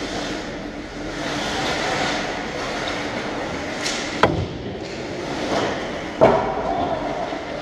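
Ice hockey play around the goal: skates scraping and carving on the ice in a steady rink rumble, with two sharp knocks about two seconds apart, the second louder, as sticks, puck or a player strike near the net.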